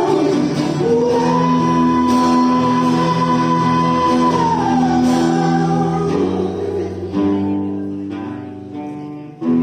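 A live rock band with a singer. A long high sung note is held over sustained chords, then slides down about halfway through, and guitar chords ring and die away before the band comes back in at the very end.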